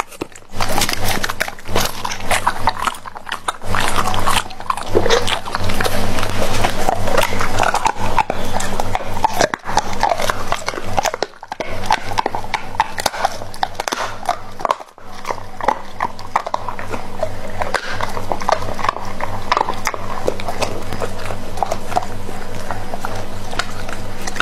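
Doberman chewing and licking raw meat from a platter: many quick clicks and smacks, with brief pauses twice, over a steady low hum.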